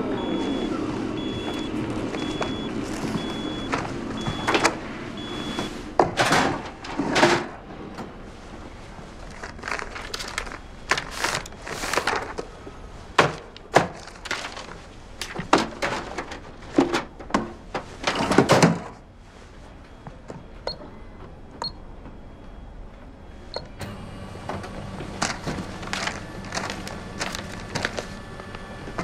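Sheets of printer paper rustling and flapping in quick, short strokes as a stack is gathered from an office copier and leafed through. There is a quieter pause of a few seconds before more rustling near the end.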